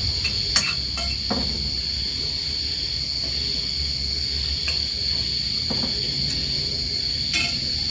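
A few light clicks of a spoon and fingers against plates as a family eats, over a steady high-pitched drone and a low hum.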